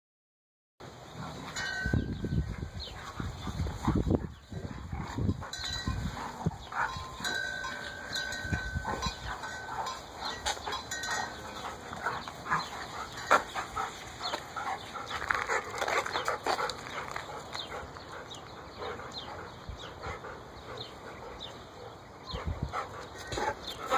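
Two Labrador retrievers play-fighting: irregular scuffling and short dog vocal sounds, with heavier low bursts in the first few seconds.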